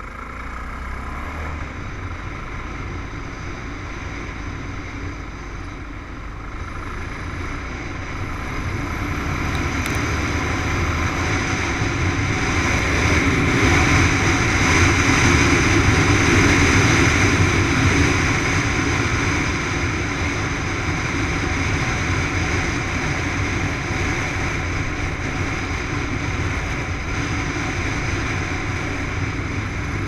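Dirt bike engine running steadily while riding, with wind rush over it; it grows louder from about eight seconds in and is loudest near the middle, then eases slightly.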